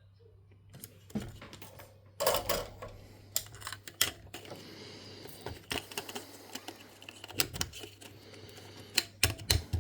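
Small plastic and metal parts of a Sony MZ-R3 MiniDisc recorder being handled on a bench: irregular clicks, taps and light knocks. They start sparse and grow busier about two seconds in.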